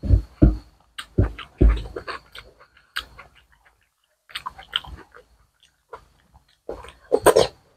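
Close-miked wet chewing and lip smacks of eating curry and rice by hand, in irregular short clicks with a brief pause midway and a louder cluster near the end.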